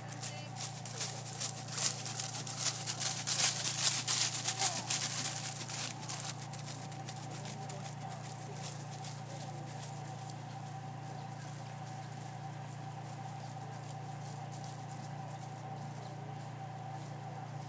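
A horse's hoofbeats on grass, loudest a few seconds in as it passes close, then fading away by about six seconds in, leaving a steady low hum and hiss.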